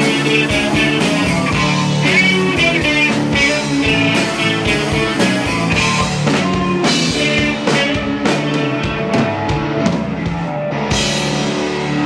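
Rock band playing live, with guitars over a drum kit and steady drum hits. A cymbal wash rings out near the end.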